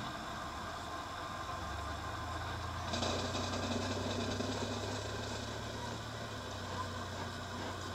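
A steady low hum over a wash of open-air noise that grows louder and brighter about three seconds in.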